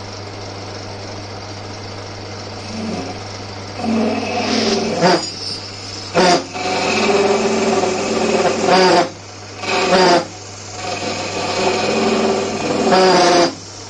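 Old Winfield metal lathe running with a steady motor hum while the cutting tool bites into the turning workpiece: from about three seconds in, a loud pitched rasping screech comes in several spells, stopping briefly between cuts.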